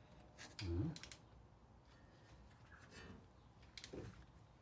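A few scattered sharp clicks and taps of tools and parts being handled at a car's wheel hub, with a short low murmur about a second in.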